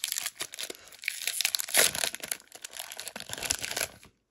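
Foil wrapper of a Pokémon booster pack being torn open and crinkled: a dense, crackling rustle that stops abruptly about four seconds in.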